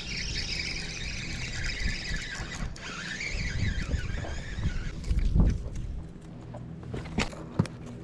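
A fishing reel squealing as line is wound in, a high wavering squeal that stops about five seconds in, followed by a low thump and a couple of sharp clicks as the catch is handled.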